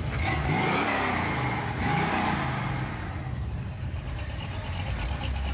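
Muscle car engine revved twice as it drives past, the pitch rising and falling each time, over a steady low rumble of engines.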